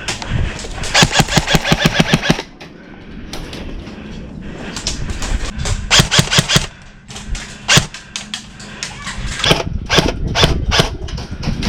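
Airsoft guns firing: a rapid full-auto burst of about eight shots a second around a second in, another burst around the middle, then scattered single shots and short strings near the end.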